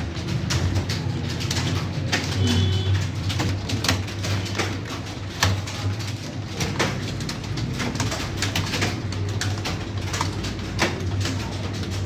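Computer keyboard keys clicking in a quick, irregular run of keystrokes, as in fast test typing, over a low steady hum.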